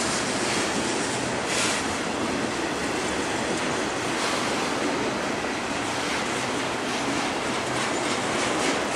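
Double-stack intermodal freight train rolling past steadily: a continuous rush of steel wheels on rail from the loaded well cars.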